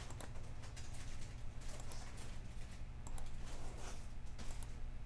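Scattered clicks of a computer mouse being pressed, a few at a time, over a steady low electrical hum.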